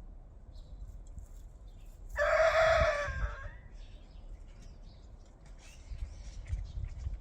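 Rooster crowing once, about two seconds in: a single loud call lasting about a second.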